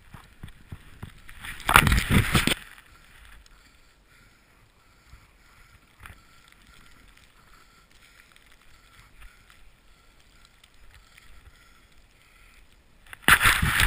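Snowboard riding through deep powder snow: a soft steady hiss under the board, with two loud rushing bursts, one about two seconds in and one near the end.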